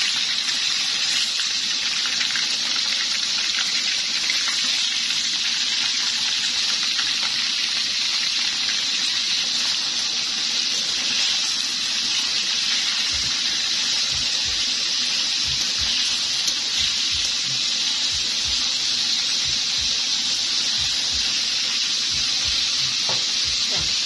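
Pork ribs sizzling steadily in hot oil in a stainless steel wok, an even hiss throughout, with soft low bumps in the second half as the pieces are turned with metal tongs.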